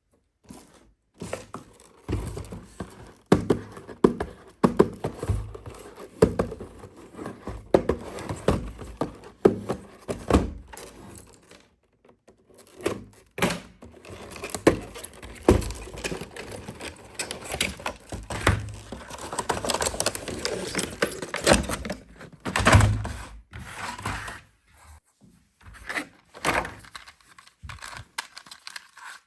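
Hands unboxing toys: a cardboard box and plastic packaging handled, with irregular knocks, taps and clicks and stretches of rustling and crinkling.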